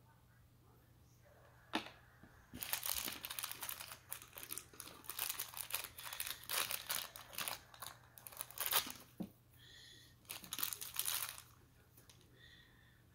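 Crinkling of a small printed wrapper being pulled open by hand to unwrap a surprise toy, coming in dense crackly spells from about two and a half seconds in until shortly before the end. A single click just before that.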